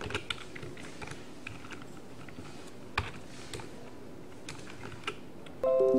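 Sparse computer keyboard key presses and clicks, with one sharper click about three seconds in. Near the end a ringing chord of several notes starts suddenly and fades away.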